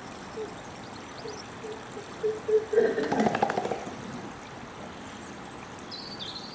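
Silverback gorilla's display: a run of short low hoots that come faster and faster, then about a second of rapid chest-beat pops with a grunt, the loudest part near the middle. A stream runs steadily underneath.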